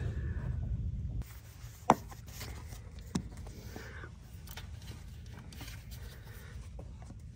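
Faint hand-work on a NOx sensor module and its mounting bolt under a truck: light rubbing and scraping with two sharp metal clicks, about two and three seconds in. A low steady hum cuts off about a second in.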